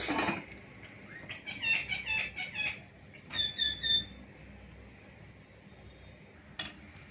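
Small birds chirping: a run of quick chirps, then two louder, clear chirping notes about half-way through. A short clatter at the very start.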